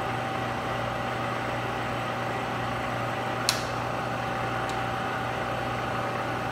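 Bridgeport 2J milling machine's 2 HP head running steadily, spindle turning with the quill power feed driving down: an even motor hum with a thin steady whine over it. A sharp click about three and a half seconds in, with a fainter one about a second later, as a feed lever on the head is worked.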